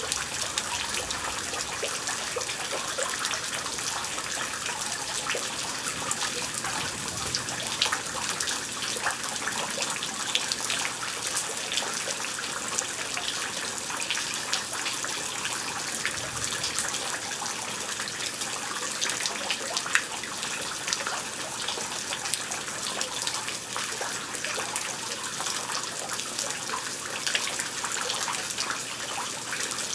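Rain falling steadily in a thunderstorm: an even hiss full of fine drop ticks.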